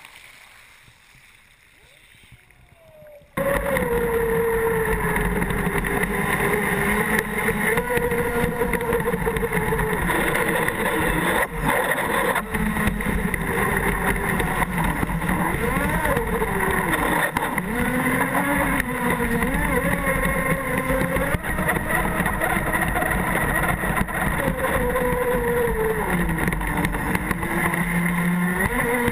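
Pro Boat Miss Geico RC speed boat running flat out, heard from on board: the electric motor's whine rises and falls in pitch with the throttle over the rush and spray of water against the hull. For about the first three seconds it is quiet, then the motor comes on suddenly at full power.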